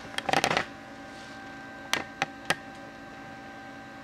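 A brief clatter near the start, then three sharp clicks about a third of a second apart, typical of a computer mouse being clicked to set the new tool's Z zero in the CNC control software. A steady electrical hum runs underneath.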